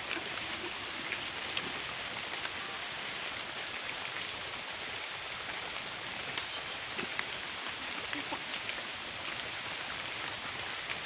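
Light rain falling steadily on the surface of a small river, an even hiss with scattered faint drop ticks.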